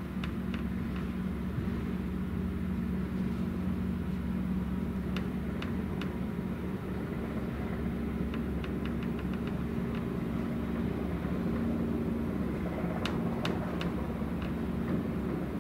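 Tugboat's diesel engines droning steadily as it runs at speed, a low hum with a deep rumble underneath, and a few faint short ticks scattered through.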